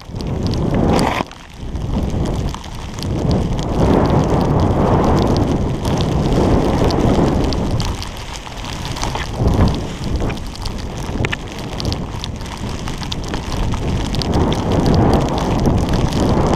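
Wind buffeting the microphone of a skier's point-of-view camera, mixed with skis hissing through deep powder snow during a fast run. The noise is loud and swells and eases every few seconds, with a short dip about a second in.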